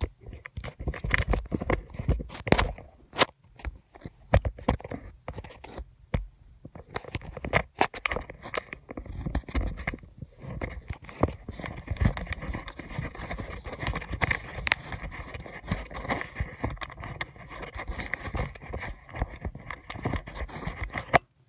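Close handling noise right at the microphone: quick clicks and taps for the first several seconds, then a dense, crackly rustle and scraping, like fabric rubbing over the mic.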